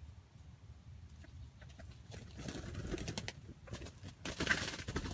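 Rustling and crackling in dry grass and leaves, with a low wind rumble on the microphone. The rustling grows louder about halfway through and is loudest near the end.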